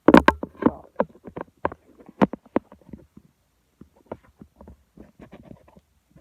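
Handling noise: a string of irregular clicks, knocks and rustles, loudest in the first second and sparser toward the end.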